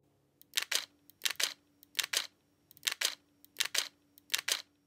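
Six evenly spaced pairs of short, crisp clicks, a double click about every two-thirds of a second, over a faint steady hum.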